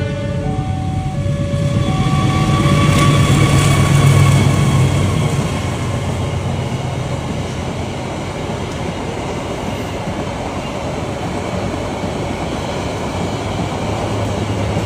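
A multi-tone vehicle horn ends with a few short notes in the first two seconds, and a longer note follows about two seconds in. Then the steady rumble of a large vehicle passing close, loudest about four seconds in and holding steady after.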